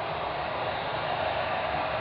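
Steady rushing drone with no rise or fall, strongest in the middle range, the unexplained noise that the recordist took to be a strange sound coming from the sky.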